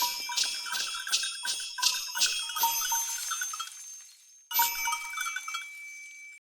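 Sleigh bells shaken in a steady rhythm, about three jingles a second, for around four seconds; then, after a brief pause, a second, shorter run of jingling.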